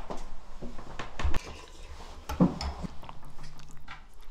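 Scattered light clicks and knocks of tableware, a metal spoon against ceramic bowls, with a dull thump a little over a second in.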